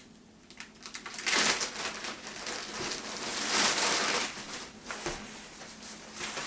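Packaging being handled and pulled open, a rustling noise starting about a second in and loudest near the middle, then lighter handling noises.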